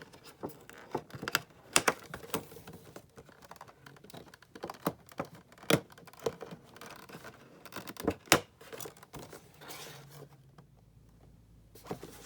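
Packaging being worked open by hand: irregular sharp clicks, scrapes and crinkles of cardboard and plastic, with a few louder snaps.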